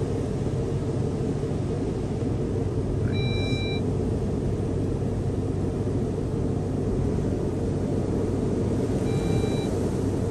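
Steady low rumble of tunnel car wash machinery, with water spray and brushes on the car, heard from inside the car. Two short electronic beeps sound about six seconds apart.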